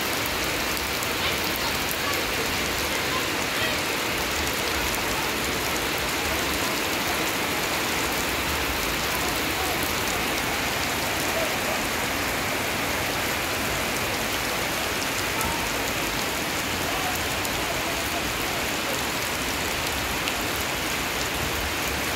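Steady rain falling, not very heavy but continuous: an even, unbroken hiss.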